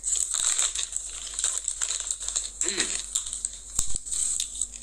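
Plastic popcorn bag crinkling and rustling in quick, irregular crackles as it is handled.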